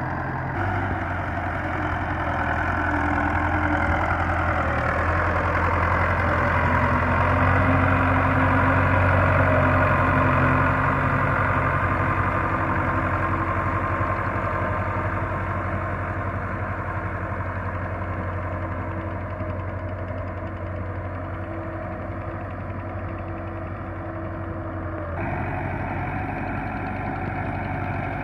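Belarus 510 tractor's diesel engine running steadily as it pulls a cultivator through flooded rice-paddy mud. It grows louder as the tractor passes close, about nine seconds in, then fades as it moves away.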